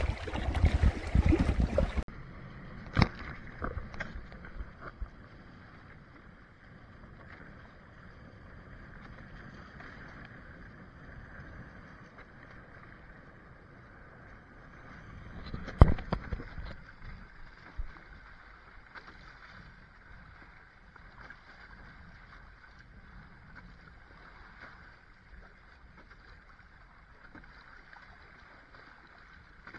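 Water rushing and splashing along the hull of a Hobie Tandem Island sailing kayak under sail in chop, with a few sharp slaps of waves against the hull, the loudest about 16 seconds in. The first two seconds are louder wind and water noise, then it cuts to a quieter, duller hiss.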